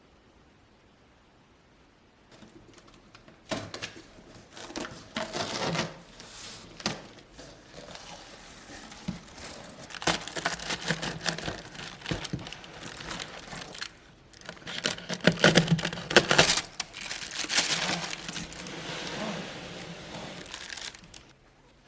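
Irregular crinkling and rustling of something being crumpled and handled, with small clicks. It starts about two seconds in, is loudest about two-thirds of the way through, and stops shortly before the end.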